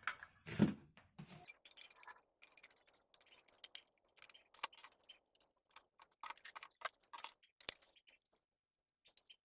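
Faint, irregular metallic ticks and clicks of screws being driven by hand with a screwdriver, fastening an SSD and a hard drive to a PC case's drive tray.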